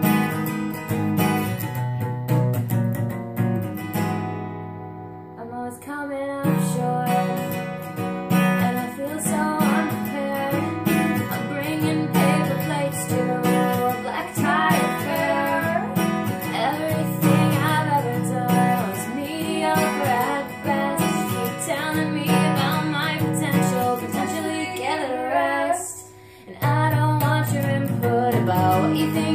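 Acoustic guitar strummed, with the chords left ringing about four seconds in; from about six seconds in a woman sings the melody over the strummed guitar. The sound drops out briefly near the end, then comes back.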